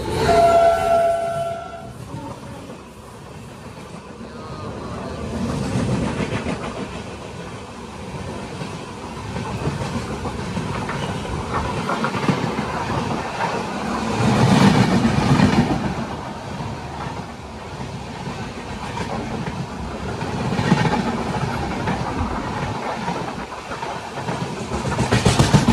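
Passenger express train running on the rails, heard from on board: steady rumble and clickety-clack of the coaches that swells and eases several times. A train horn sounds briefly near the start.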